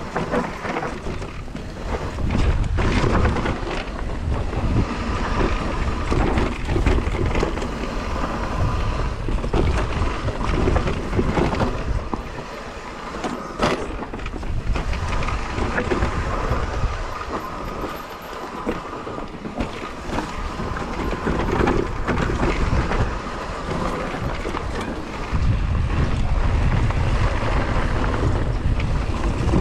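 Electric mountain bike ridden over a dirt trail: steady tyre and frame rumble with scattered knocks and rattles, and wind buffeting the microphone.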